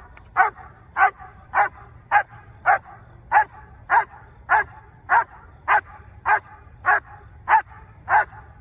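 German Shepherd barking steadily in an even rhythm, about one bark every 0.6 seconds, at a helper in a protection-training blind: the bark-and-hold exercise.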